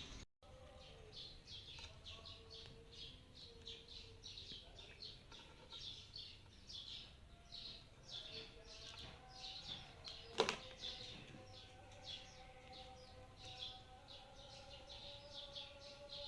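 Small birds chirping quickly and repeatedly, several short chirps a second, faint, with a single sharp click about ten seconds in.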